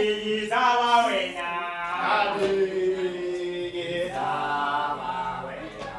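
Voices chanting a slow song in long held notes that slide gently between pitches.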